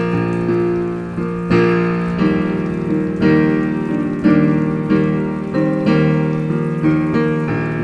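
Background piano music: a slow piece with notes and chords struck roughly once a second and left to ring.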